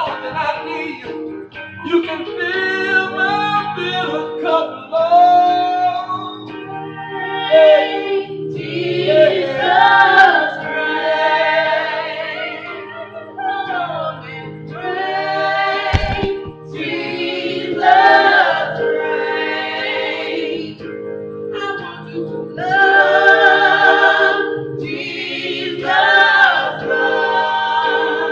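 Gospel vocal group singing phrases with vibrato over steady held accompaniment chords. A single low thump about sixteen seconds in.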